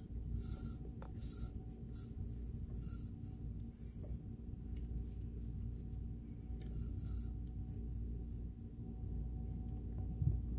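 A cloth rubbing and wiping over sewing machine parts to take off excess oil, in short scratchy bursts at the start and again past the middle, over a steady low hum.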